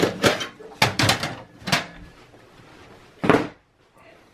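Optical drive sliding out of the metal drive cage of an HP Compaq 8200 Elite tower: several clunks, clicks and scrapes in the first two seconds, then one more knock a little after three seconds.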